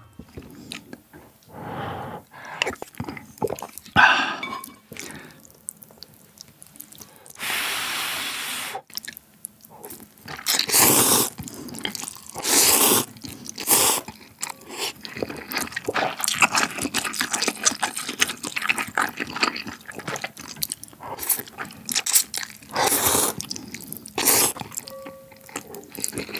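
Close-miked slurping of Yeul Ramen instant noodles off a fork, in several long pulls, with wet chewing and smacking between them.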